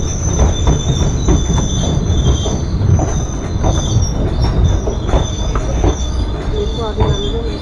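Passenger train coaches rolling slowly alongside a platform as the train pulls into a station: a steady high-pitched squeal from the wheels over a deep rumble, with repeated clacks of wheels over rail joints.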